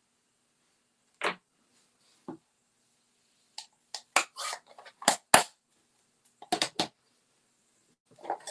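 Scattered sharp clicks and taps of a plastic ink pad case and stamping tools being handled and set down on a desk, the loudest pair about five seconds in.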